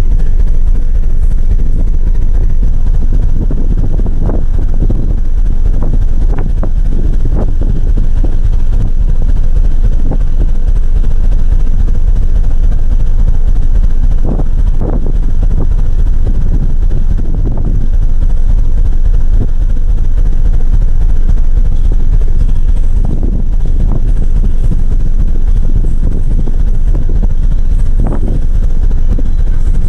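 Wind buffeting the microphone on a ship's deck in stormy weather: a loud, continuous low rumble with irregular gusts.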